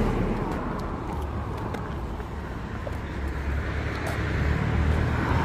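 Road traffic noise: a steady rumble of passing cars, getting louder near the end.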